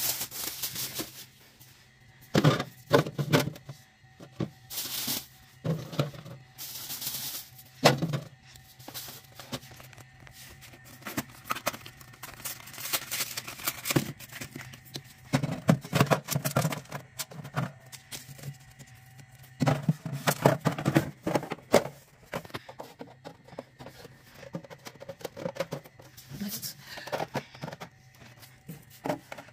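Small plastic drink bottles knocking and clattering as they are handled, pulled from a cardboard carrier and set down in a plastic fridge drawer, in irregular bursts over a steady low hum.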